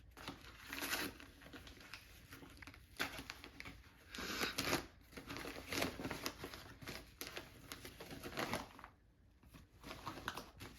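A cardboard box and its packaging being handled and opened by hand: irregular crinkling, rustling and tearing with small knocks, pausing briefly near the end.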